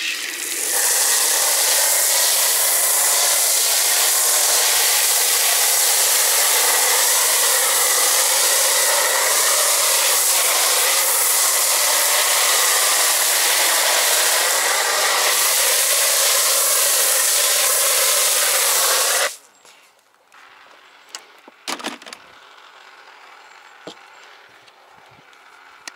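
Pressure washer spraying onto the car's bodywork: a loud, steady hiss that starts just after the beginning and cuts off sharply about 19 seconds in. A few light clicks follow.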